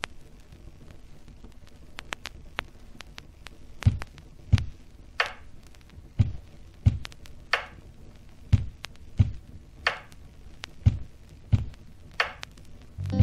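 Paintbrush working acrylic paint on a large stretched canvas. About four seconds in, a rhythm starts: pairs of low thumps as the canvas gives under the brush, each pair followed by a scrubbing swish of bristles, repeating about every two and a half seconds.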